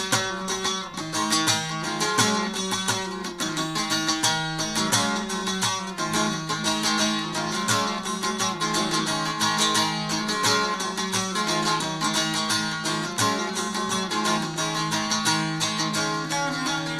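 Bağlama (saz) played solo with fast plectrum strokes, a folk melody picked over a steady low drone.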